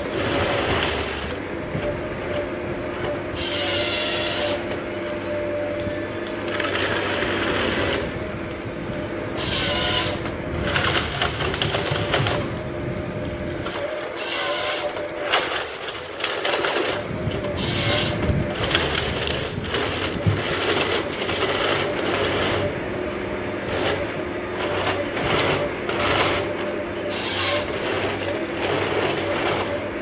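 Tracked forestry harvester processing a stem: its engine and hydraulics hold a steady drone with continuous clattering as the head strips the branches, broken by about five short, sharp bursts as the head's saw cuts through the log.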